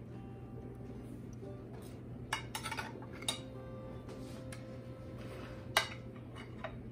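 A metal knife clinking and scraping against glass dishes while spreading a soft pudding layer. There are several sharp clinks a little over two seconds in, and a louder one near the end.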